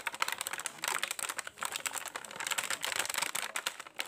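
Plastic packaging and a cardboard box being handled during unboxing: a dense run of small crackles and clicks as the plastic tray and wrapped batteries are moved.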